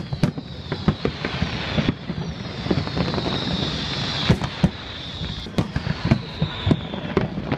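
Large aerial fireworks display: shells bursting in quick, uneven bangs, several a second, over a steady high hiss that swells in the middle.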